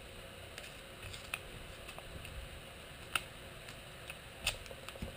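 A few faint, scattered clicks and handling noises as blue painter's tape is laid down and pressed on by hand.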